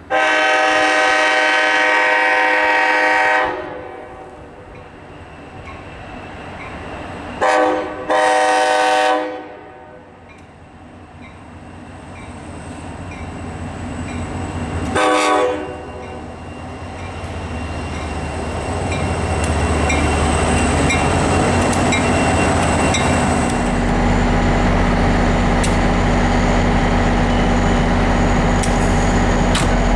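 Locomotive air horn: one long blast of about three and a half seconds, then a short and a longer blast about seven and eight seconds in, and a brief toot about fifteen seconds in. The train then draws closer, its rumble growing steadily louder, with a steady low engine drone in the last several seconds.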